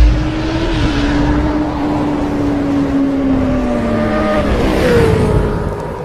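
Motorcycle engine sound effect in an animated intro: a loud whoosh at the start, then a steady engine note that slowly sags in pitch, drops and climbs again about five seconds in, fading near the end.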